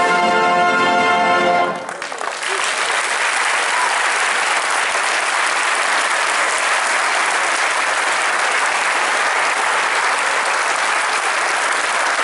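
Massed brass bands hold a final chord that cuts off about a second and a half in, then a large audience applauds steadily.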